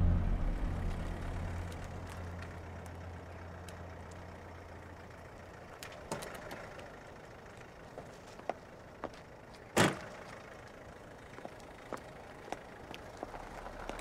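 A vehicle engine running low and dying away over the first few seconds, then quiet with scattered small clicks and one sharp knock about ten seconds in.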